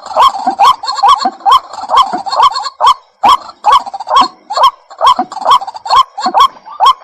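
White-breasted waterhen calling: a loud, fast run of harsh, short rising notes, about two to three a second, its repeated 'ruak-ruak' call. The run breaks briefly about three seconds in.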